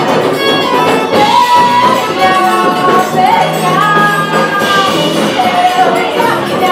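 Live Brazilian dance band playing: accordion, electric bass, drum kit and hand percussion at a steady dance rhythm, with a woman singing the lead.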